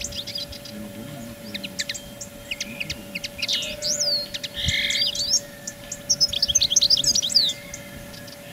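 Small songbirds chirping and calling in quick, high, squeaky notes, with a short buzzy trill near the middle and a busy flurry of calls in the last couple of seconds.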